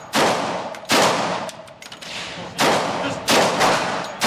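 Shots from 10mm Glock pistols fired one at a time at an unsteady pace, four in a few seconds. Each shot rings on in a long echo off the walls of an indoor range.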